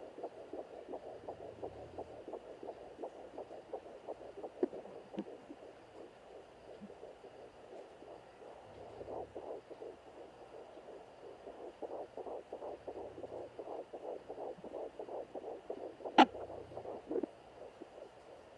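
Fetal heartbeat picked up by a handheld digital fetal doppler: a steady pulsing whoosh of repeated beats. A sharp knock about 16 seconds in is the loudest sound, with a smaller one near 4.5 seconds.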